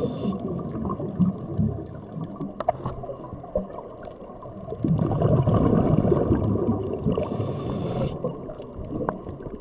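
Scuba diver breathing through a regulator underwater: exhaled bubbles gurgling in waves, loudest in the middle, then a short inhalation hiss about seven seconds in.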